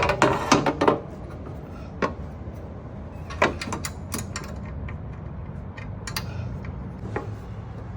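Metal hardware clicking and clattering as a bolt is handled and fitted into a concealed door closer: a burst of rattling clicks in the first second, then scattered single clicks, over a steady low hum.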